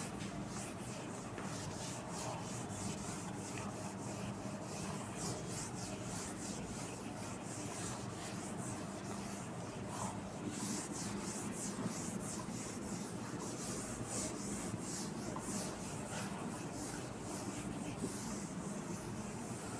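A cloth duster wiping marker off a whiteboard in repeated rubbing strokes.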